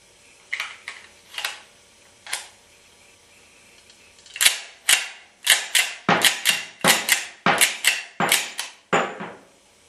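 Replica M1911 pistol's slide racked by hand again and again: sharp metallic clacks as the slide runs back and snaps forward. A few spaced clicks come first, then a fast run of clacks, often in quick pairs, for about five seconds.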